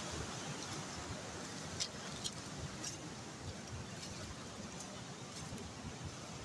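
Steady rushing of a fast-flowing river, with a few faint clicks about two to three seconds in.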